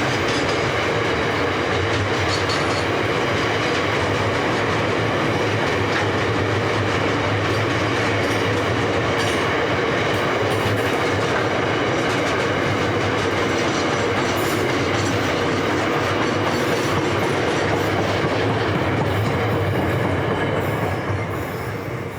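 Freight train's container wagons rolling past, a steady noise of steel wheels on the rails that starts to fade away in the last second or so.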